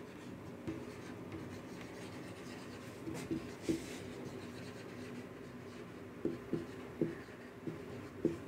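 Marker writing on a whiteboard: a run of short, faint strokes, with several close together in the last few seconds.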